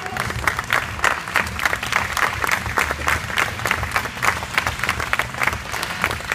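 Audience clapping, many sharp claps following one another a few times a second, over quieter music.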